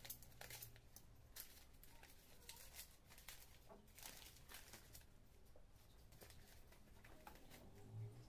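Newspaper wrapping crinkling and rustling in quick, irregular crackles as it is unfolded by hand.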